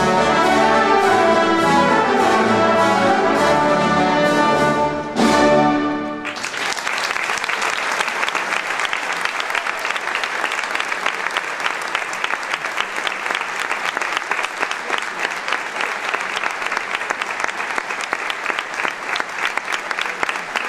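Symphonic wind band, with brass, woodwinds and percussion, playing the closing bars of a pasodoble, then after a brief break one short loud final chord that ends about six seconds in. Audience applause follows and carries on steadily.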